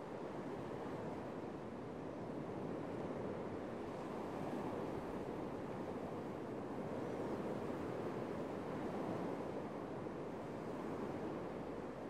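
Small sea waves breaking and washing up a sandy beach: a steady surf wash that swells and eases gently as each wave comes in.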